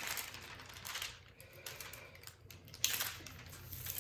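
Rustling and crinkling of a plastic sheet and canvas being handled, loudest in the first second and then fainter, with one sharp tap just before the three-second mark.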